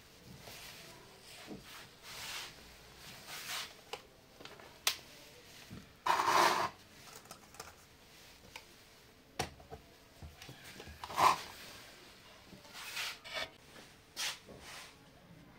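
Handling noises on a wooden desk: irregular rubbing and sliding with a few sharp clicks, as a laptop is handled and its lid opened, and a boom-arm phone mount is adjusted near the end.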